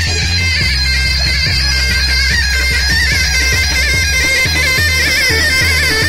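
Live folk dance music through loudspeakers: a shrill, wavering reed-like melody, bagpipe- or zurna-like, over a steady drum beat of about two strokes a second and a bass line.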